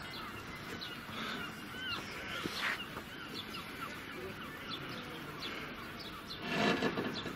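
Birds calling outdoors: many short chirps throughout, with a louder, noisier call about two and a half seconds in and the loudest one near the end.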